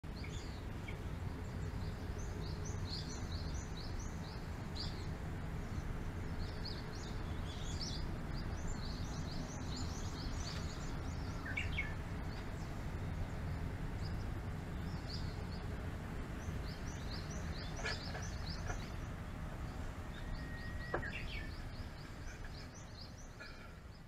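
Forest birds chirping and calling repeatedly in short bursts over a steady low rumble; the rumble fades near the end.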